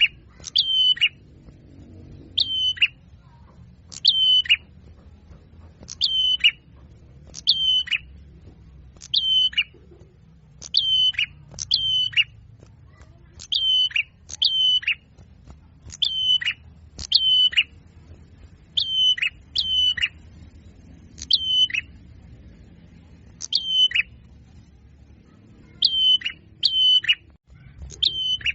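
Small songbird's short sharp call repeated over and over at fairly even intervals, about one every one to two seconds and sometimes in quick pairs. It is a looped bird-lure recording of small birds such as white-eyes and sunbirds.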